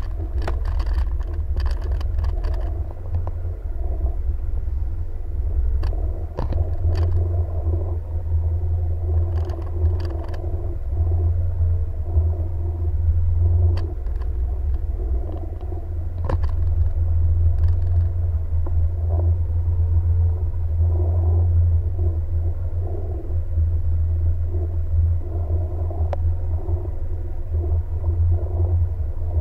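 Jet ski engine running steadily under a heavy low rumble, with scattered sharp knocks in the first half.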